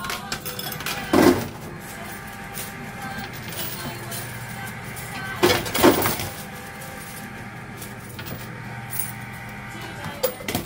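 Coins clinking and clattering in a coin pusher arcade machine, in two short bursts: one about a second in and another around six seconds. A steady low hum runs underneath.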